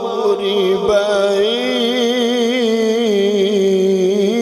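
A man reciting the Quran in the melodic tajwid style through a microphone, drawing out a long, ornamented note that wavers up and down without a break.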